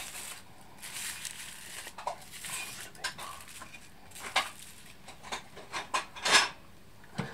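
Wood fire crackling in a wood stove, with scattered sharp pops and short hissing stretches. About six seconds in come a few clanks and a loud scrape of a metal tray being pushed into the firebox.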